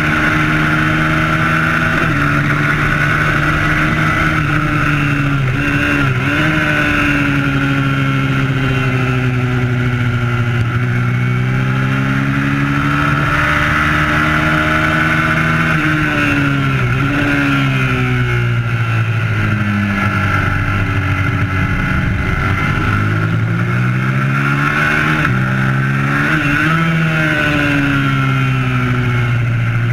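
Twin-cylinder race motorcycle's engine heard from an onboard camera at racing speed, the revs climbing and dropping sharply several times with the gear changes and falling away on braking, over steady wind rush.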